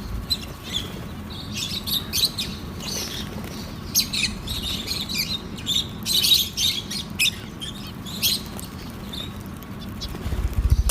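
Lovebirds chirping, many short high chirps coming in quick irregular clusters, with a low rumble near the end.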